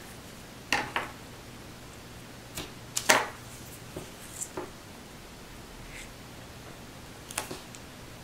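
Paper and double-sided adhesive tape being handled on a craft mat: a scatter of short rustles and taps, the loudest about three seconds in.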